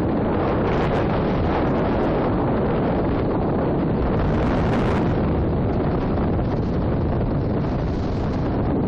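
Wind blowing on the microphone: a steady, unbroken rush, heaviest in the low range.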